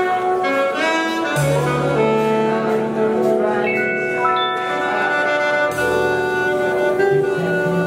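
Live jazz: a saxophone playing long held notes over piano, upright bass and drums.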